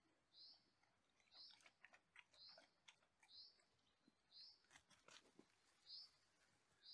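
Faint bird calls, a short high note repeated about once a second, with light crackling and crunching between about one and a half and five and a half seconds in, like a dog stepping on leaves and wet ground at a stream's edge.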